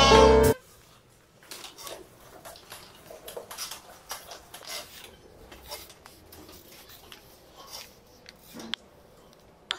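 Music cuts off about half a second in, then faint, scattered clicks and rattles of a child's small bicycle with training wheels rolling over a tiled floor, with a sharper click near the end.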